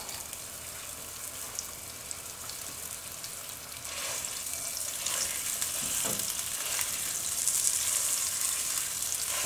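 Ground spicy Italian sausage sizzling in hot oil in a pot. From about four seconds in a spatula breaks up and stirs the meat, and the sizzle grows louder.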